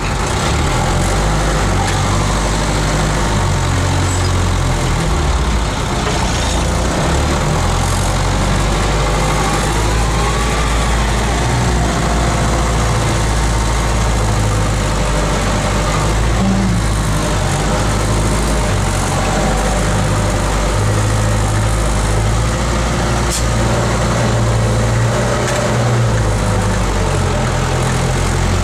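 Unimog truck's diesel engine running as it drives over the off-road trial course, its revs rising and falling.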